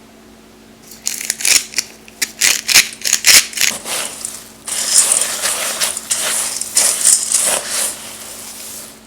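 Dried black beans and couscous rattling as they are poured: about a second in, a quick run of separate clicks and clatters, then a steady rushing pour that thins out near the end.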